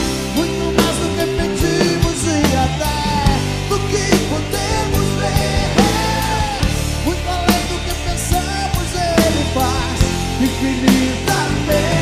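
Live band playing a rock-pop song, with drums beating steadily under a man singing lead into a microphone.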